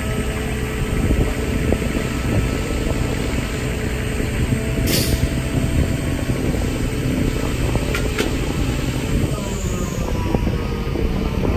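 Diesel power pack of a self-propelled modular trailer running steadily, with wind buffeting the microphone. A short hiss about five seconds in.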